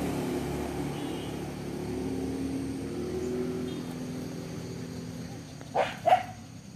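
A motor vehicle's engine running as it passes on the road, its hum slowly shifting in pitch and fading away over about five seconds. Near the end, two short sharp sounds come in quick succession.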